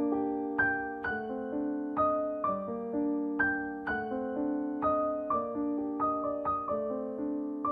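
Background piano music: a gentle melody of struck notes and chords, about two a second, each note fading after it is struck.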